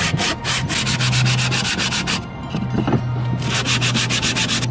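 Sandpaper wrapped around a wooden block being rubbed by hand along a wooden chair rail. The quick back-and-forth strokes come about five a second, with a pause of about a second midway before the sanding resumes.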